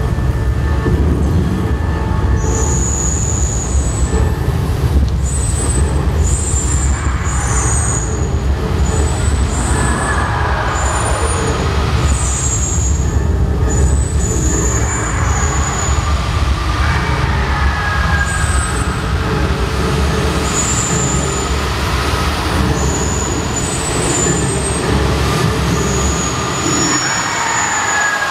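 Loud, steady low rumble from an animatronic show's effects soundtrack as gas flame jets fire, with short high whistling tones scattered over it; the rumble dies away near the end.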